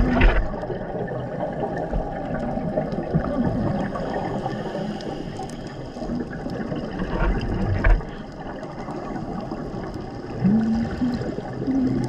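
Underwater scuba ambience: a diver's regulator breathing, with rumbling, bubbling exhalations swelling a few times over a steady wash of water noise.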